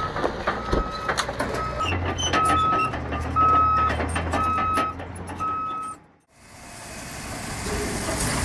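A bulldozer's reversing alarm beeping about once a second over its diesel engine, with scattered knocks. The sound breaks off abruptly about six seconds in, and a steady engine-and-hiss sound comes in.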